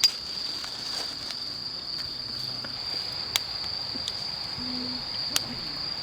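Night insects, such as crickets, singing a steady, high continuous trill. Three sharp clicks cut through it: one at the very start, one about three and a half seconds in, and one about five and a half seconds in.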